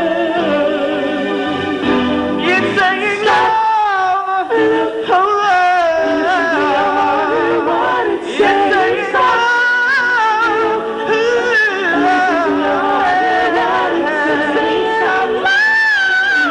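Male vocal trio singing an R&B ballad with music, the voices holding wavering, drawn-out notes and runs rather than clear words.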